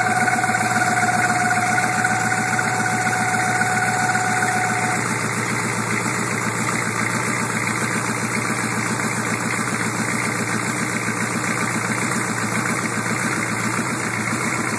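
6.2-litre V8 turbo diesel of a 1987 Chevrolet Suburban idling with a steady, rapid diesel clatter. A steady high whine runs over it and fades out about five seconds in.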